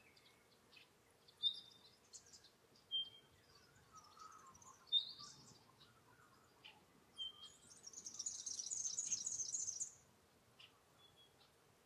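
Wild birds calling: short sharp high calls recurring every second or two, a brief lower warbling call about four seconds in, and a loud burst of rapid high chattering lasting about two seconds near the end.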